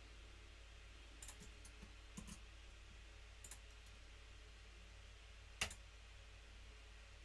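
Faint scattered clicks of a computer keyboard and mouse over near-silent room tone, with one louder, sharper click about five and a half seconds in.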